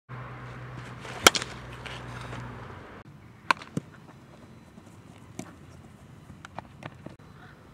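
A baseball bat striking a ball with one loud, sharp crack about a second in, over a steady low hum that cuts off about three seconds in. After that come a few quieter, sharp pops of the ball being hit and caught in a glove during ground-ball fielding drills.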